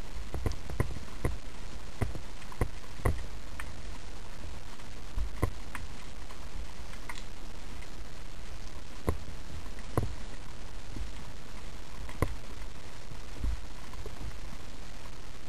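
Underwater ambience: a steady low rumble with irregular sharp clicks, several in the first few seconds, then one every second or two.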